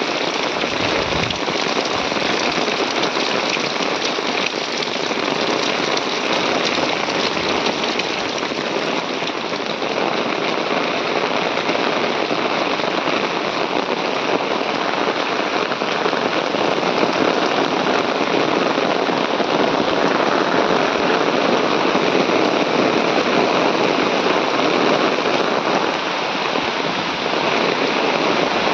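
Heavy rain falling steadily, a loud, dense, unbroken hiss of water.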